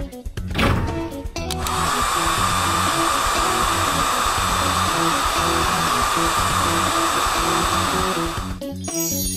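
Cartoon power-tool sound effect: a steady whirring noise from the car-wash machine arm working at the van's wheel, starting about a second and a half in and stopping abruptly near the end. Background music with a repeating bass line plays under it.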